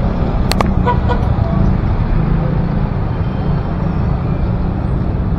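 Steady noise of city street traffic, with a couple of sharp clicks about half a second in.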